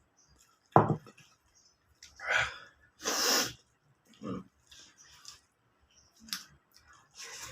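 A person eating very spicy food: a sudden sharp burst about a second in, then a string of loud hissing breaths and sniffs, with some chewing.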